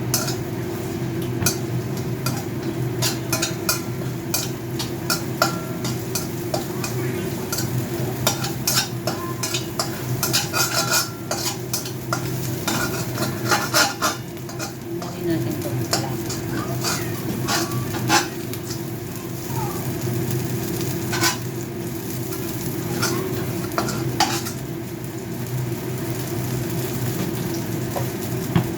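Chicken legs sizzling as they fry in oil in a pan, while a metal utensil stirs and scrapes them, clinking against the pan again and again.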